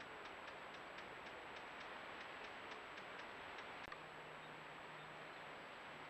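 Green woodpecker calling its laughing 'yaffle', a faint series of short notes at about four a second that stops about three and a half seconds in, over steady hiss and a thin high whine. A single click follows near four seconds, then a low steady hum.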